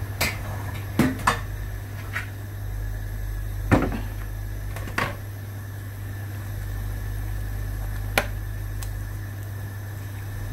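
Metal slotted spoon knocking against the sides of a stainless steel pot of water as a sheet of yufka dough is pushed and turned: about seven sharp clinks at irregular intervals, over a steady low hum.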